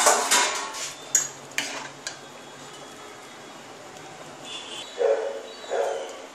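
An aluminium pot lid is lifted off with a loud metal clatter, followed by a few clicks of a metal spoon against the pot as the khichuri is stirred. Near the end come three short, loud, bark-like sounds about a second apart.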